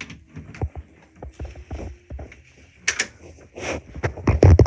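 Handling noise from a handheld phone: irregular knocks and rubs of fingers on the microphone, with a couple of rustling bursts, and the loudest thumps near the end.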